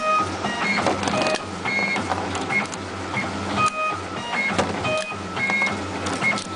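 A motorised wire stripping machine whirring in repeated short cycles, its motor starting and stopping about every second, under background music made of short bright notes.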